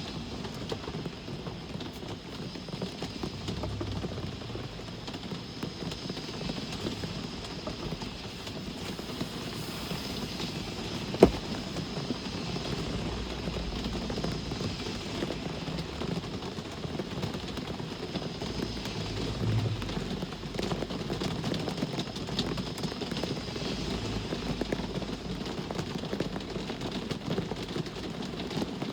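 Steady rain with a low rumble of traffic rising and falling. A single sharp click about a third of the way in.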